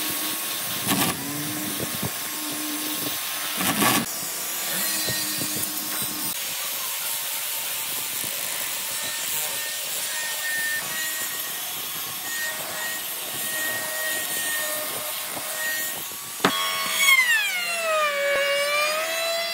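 Electric grinder fitted with a sanding drum running steadily as it sands the inside of a slot in an old railway-sleeper plank, with two short knocks about one and four seconds in. Near the end a trim router switches on with a click, and its motor whine drops in pitch and wavers as the bit cuts into the wood.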